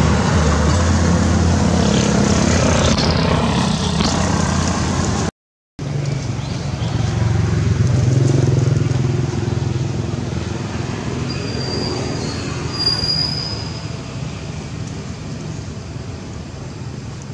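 Motor vehicle engine running nearby, a steady low hum like road traffic, broken by a short silent gap about five seconds in, with a brief high squeal near the end.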